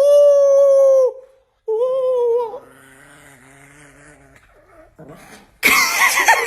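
Chihuahua howling: two long, steady-pitched howls, the second shorter. After a short lull, a louder sound falling in pitch starts near the end.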